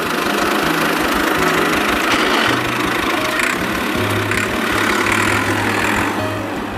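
Tractor engine sound running steadily, with music underneath. It cuts off right at the end.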